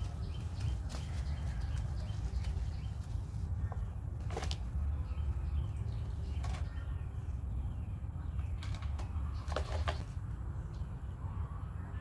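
Steady low rumble with a few light knocks and clicks scattered through it, one about four seconds in, one about six and a half seconds in, and two close together near ten seconds.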